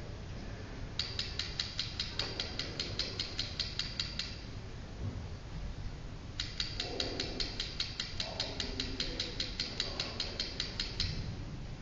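Rapid, even clicking, about five clicks a second, from the Listening Post art installation as words type out letter by letter on its small text displays. It comes in two runs of a few seconds each, with faint low tones under the second run.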